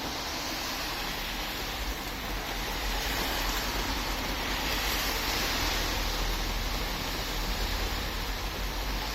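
Steady rushing noise of stormy weather, with an unsteady low rumble of wind buffeting the microphone that grows stronger after about two seconds.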